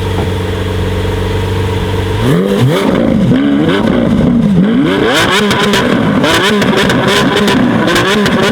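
BMW M5 F90's twin-turbo V8, fitted with a SuperSprint exhaust, idling steadily, then revved repeatedly from about two seconds in, the pitch rising and falling with each blip. From about halfway through, rapid exhaust crackles and pops ring out as the revs drop.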